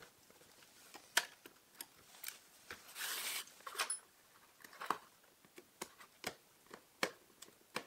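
Scattered small clicks and light scrapes of a small screwdriver and tweezers fitting two tiny screws into the metal frame of an LCD panel, with one longer scrape about three seconds in.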